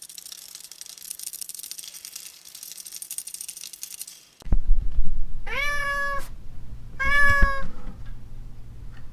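A domestic cat meowing twice, each meow a drawn-out, rising call about a second apart, in the second half. Before that, a steady hiss.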